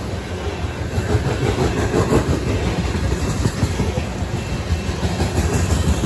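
Covered hopper cars of a freight train rolling past: a steady rumble of steel wheels on rail with frequent clicks and clanks.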